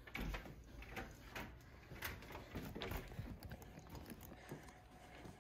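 A string of light, irregular clicks and knocks: a door's lever handle and latch being worked as the door opens, then footsteps and handling noise as someone walks in.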